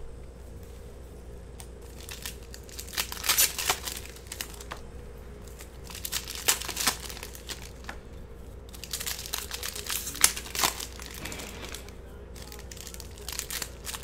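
Foil wrappers of trading card packs being torn open and crinkled by hand, in four bouts of crackling a few seconds apart.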